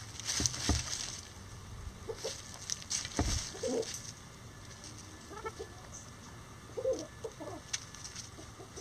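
Bantam chickens clucking softly in short calls, with sharp knocks and rustling as a hen pecks at a hanging ear of corn and scratches in dry leaves; the loudest knock comes about three seconds in.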